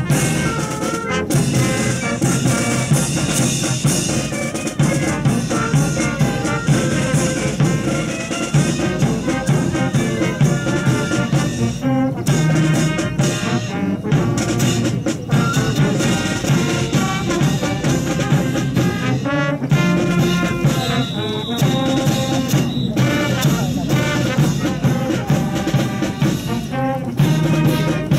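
Brass band music, trumpets and trombones playing over drums.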